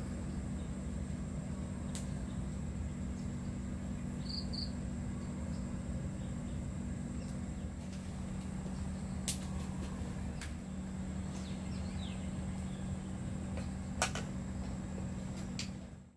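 Outdoor ambience: a steady high-pitched insect drone over a steady low hum, with a few sharp clicks and two short chirps about four seconds in. It fades out at the very end.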